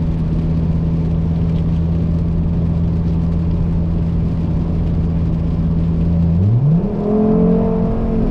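Turbocharged five-cylinder engine of a 2004 Volvo S60R with a straight-piped exhaust, heard from inside the cabin, running low and steady at a cruise of about 1500–2000 rpm. About six seconds in the revs climb sharply and hold at a higher pitch.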